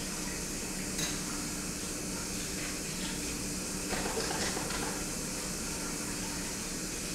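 Steady low room hum and hiss, with a faint click about a second in and a short cluster of light clinks about four seconds in.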